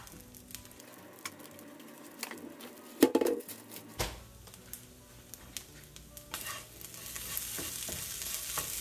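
Spatula stirring and scraping a rice, bean and corn mixture around a frying pan, with scattered scrapes and taps and one louder knock about three seconds in. The sizzle of the frying food swells over the last two seconds or so.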